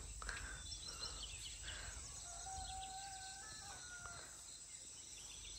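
Faint rural outdoor background with a few small bird chirps in the first second and a distant rooster crowing once, one long call of about two seconds starting a little after two seconds in.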